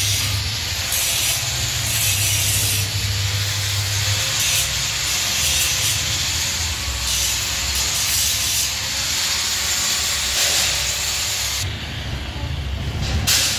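Handheld electric power tool grinding on the steel bars of a window grill: a steady, harsh hissing grind over a low motor hum. It eases off near the end.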